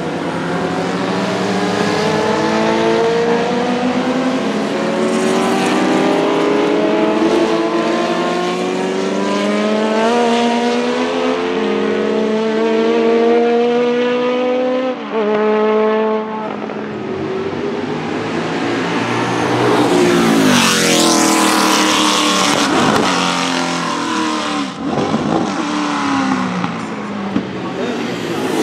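Lola T70 Mk3 Coupé's Chevrolet V8 racing engine accelerating hard through the gears. Its pitch climbs and then drops back at each upshift, several times in a row. After about 15 seconds comes another hard run, and a close pass-by at about three-quarters of the way, with the pitch rising and then falling as the car goes past.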